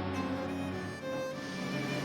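Background music with sustained bowed-string tones.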